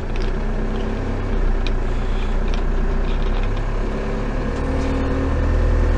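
Motorhome engine running as the vehicle drives slowly, heard from inside the cab, a steady hum that grows a little louder near the end.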